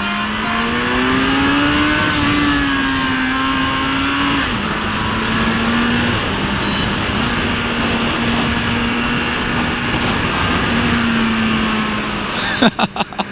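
Sport motorcycle engine running at cruising speed with wind rushing past. The engine note rises over the first two seconds, drops sharply about four and a half seconds in, then holds steady. A few sharp cracks come near the end.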